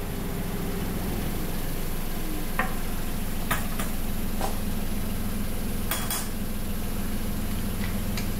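Bowls and utensils clinking a few times as ramen bowls are set out on a stall counter, over a steady low mechanical hum.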